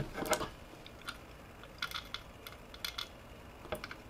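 Faint, scattered small clicks and ticks of a capacitor's wire legs and a circuit board being handled with the fingers, about six in four seconds.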